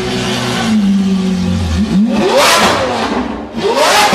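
Lamborghini Aventador's V12 engine running at a steady note, then revved hard twice: the pitch climbs sharply and falls back about two seconds in, and again near the end.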